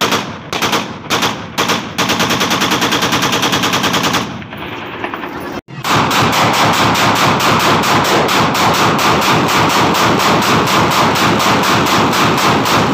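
Celebratory gunfire from Kalashnikov-type rifles fired into the air: a few single shots, then a fully automatic burst of about two seconds. After a short break near the middle, a long unbroken automatic burst at roughly ten rounds a second.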